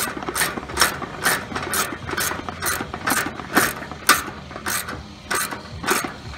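Socket ratchet wrench with a 17 mm socket clicking as it tightens the nut on a grill's wheel axle, about two clicks a second.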